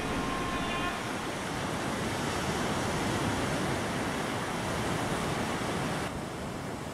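Baltic Sea surf breaking and washing on a sandy beach: a steady, even rush of waves, with faint musical tones fading out about a second in.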